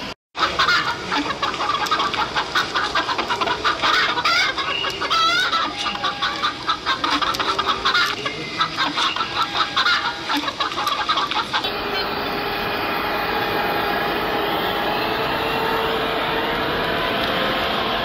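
Hens clucking busily and without pause, the farmyard sound effect of a model layout's miniature chicken run. About eleven and a half seconds in it cuts off abruptly and gives way to a steady hum of a model train running.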